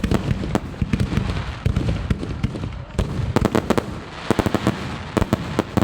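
Professional aerial fireworks display: a continuous barrage of sharp bangs over a low rumble, with fast strings of crackling reports about three seconds in and again near the end.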